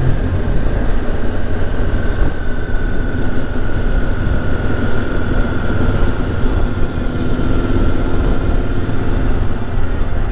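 Motorcycle engines running steadily in a large group ride: a continuous low rumble with a faint, steady high whine.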